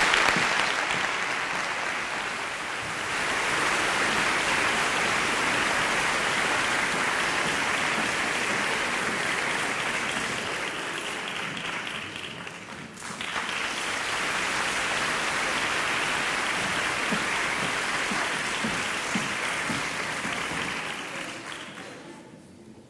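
Audience applauding steadily, with a brief lull about halfway and dying away near the end.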